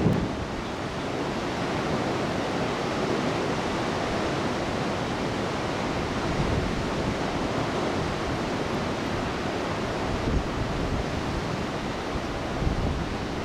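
Storm surf whipped up by Typhoon Fanapi, rows of breaking waves making a steady rush of noise, with a couple of slightly louder swells near the end.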